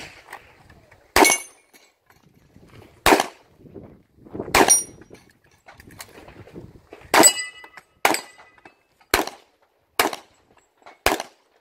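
Eight handgun shots fired at an uneven pace, one to two seconds apart, during an IPSC stage run. A few of the shots carry a brief ringing tone after them.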